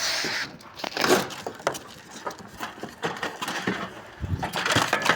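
Knocks, scrapes and clinks of a heavy air-conditioner unit, about 90 kg, being lifted and shifted by hand, with a dull thump about four seconds in.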